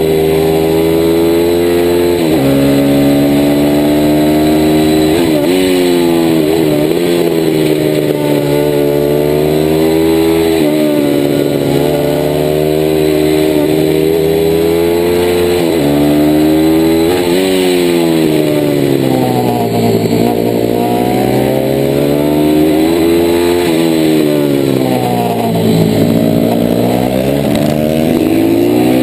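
A DHZ Outlaw 160cc mini motard's single-cylinder four-stroke engine at racing pace. It climbs in pitch and drops suddenly at each of several upshifts in the first half, then falls away and winds back up, twice, as the bike slows for corners and accelerates out.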